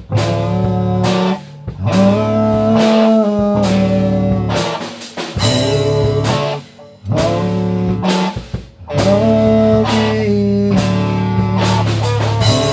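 Rock band jamming without vocals: electric guitars, bass guitar and drum kit playing a riff, with a few brief breaks between phrases.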